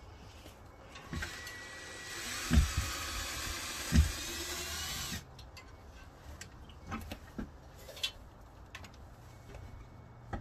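Cordless drill-driver whirring for about four seconds as it backs screws out of a plywood board fastened over a window, with two knocks during the run; afterwards a few light taps and knocks as the board is worked loose.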